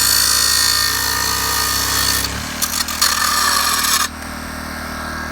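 A power tool cutting through a leg at the base of a greenhouse frame: a steady, loud cutting rasp that breaks off briefly about two seconds in, starts again, and stops about four seconds in.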